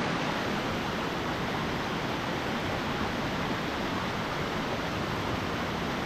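Steady rush of a waterfall: an even, unbroken noise of falling water with no separate events.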